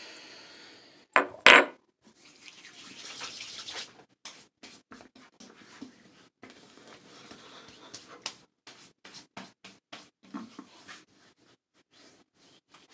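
Two sharp knocks about a second in, then hands rubbing together and many light pats as aftershave is slapped onto the face and neck.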